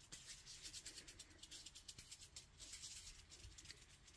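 Faint, rapid swishing of palms rubbing together as they roll a small ball of Model Magic clay.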